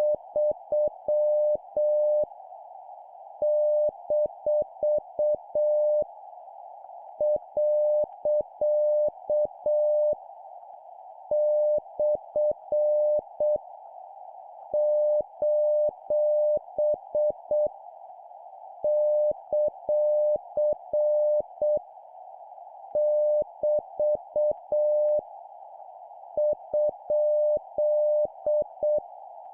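Morse code (CW) sent at 7 words per minute, punctuation marks: a steady tone of about 600 Hz keyed in dits and dahs, one group roughly every 3.5 to 4 seconds, over a constant background hiss.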